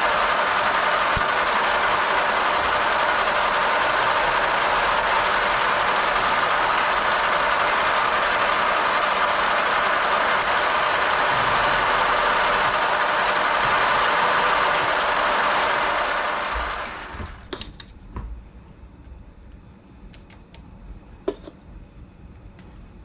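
Metalworking machine tool running steadily with a loud even mechanical noise while a drilled hole is reamed, then switched off about 16 seconds in and quickly running down. A few light clicks and taps of metal follow.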